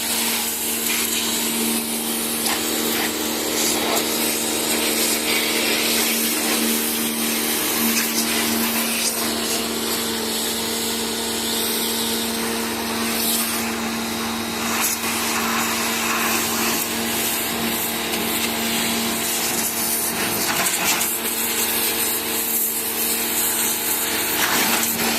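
Electric high-pressure washer running: a steady motor hum under the hiss of its water jet spraying onto a car tyre.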